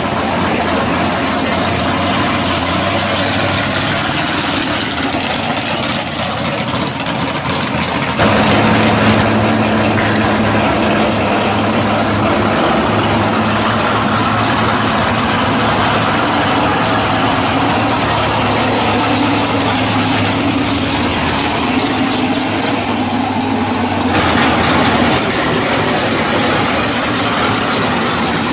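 Drag race cars' engines idling loudly as the cars roll slowly through the pits. The engine sound changes abruptly about eight seconds in and again near twenty-four seconds, with one car's engine giving way to another's.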